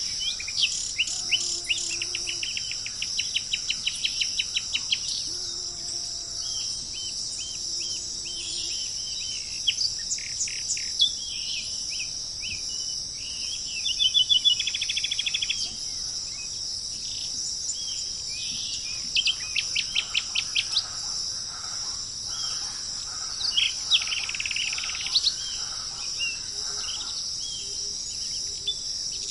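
Tropical birds calling in quick series of repeated chirps over a steady high-pitched drone of insects. A faint low, hooting call sounds twice in the first third.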